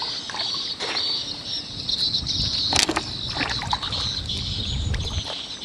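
River water sloshing and lapping around a floating plastic basin of clams as a person wades beside it, with a few sharp clicks. A steady high-pitched chirring carries on in the background.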